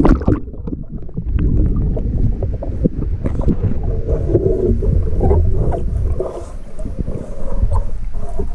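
A splash as the camera plunges under the water, then muffled underwater sound: a low rumble with scattered knocks and clicks.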